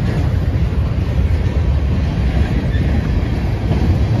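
Freight train's tank cars rolling past at close range: a loud, steady rumble of steel wheels on the rails.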